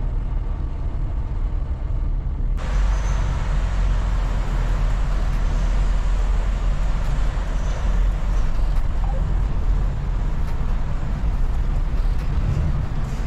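Semi-truck engine running with a steady low rumble and road noise, heard from the cab as the truck drives off the ferry. About two and a half seconds in, the sound turns suddenly brighter and hissier.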